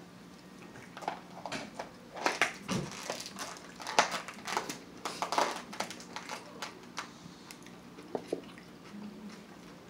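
Close-up biting and chewing of a blackened salmon taco, a quick run of crisp crunches and wet mouth sounds between about one and seven seconds in.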